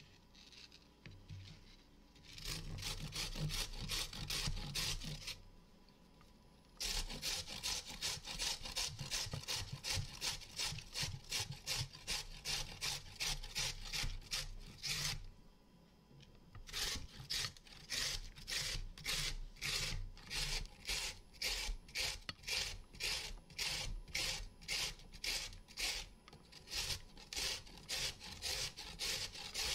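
A carrot being grated on a stainless-steel box grater standing on a wooden cutting board. Rhythmic grating strokes, about two a second, start a couple of seconds in and pause briefly twice.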